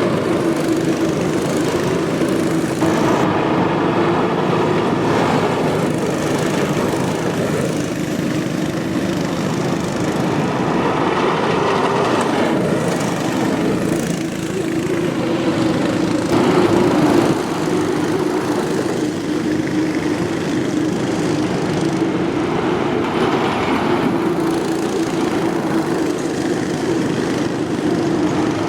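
Cyclekarts' small single-cylinder engines running as the karts lap the yard, a steady engine note whose pitch wavers slightly.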